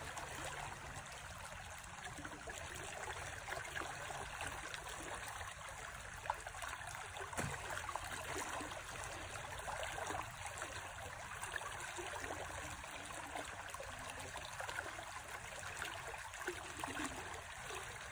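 A river flowing steadily, with a continuous rush of moving water.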